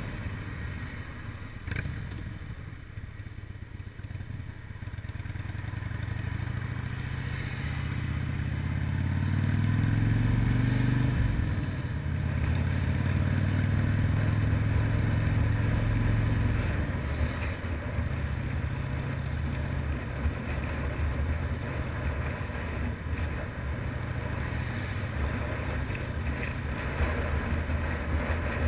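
Harley-Davidson FXRDI motorcycle's V-twin engine running under way, rising in pitch as it accelerates about eight seconds in, holding steady, then dropping off a little after sixteen seconds and running on at a lower pitch.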